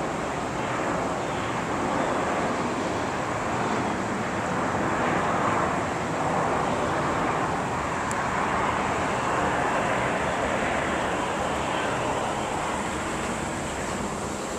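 Jet airliner engines making a steady rushing noise that swells slightly around the middle.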